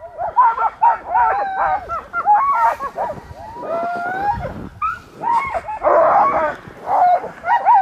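A team of sled dogs yipping, barking and whining, many voices overlapping without a break.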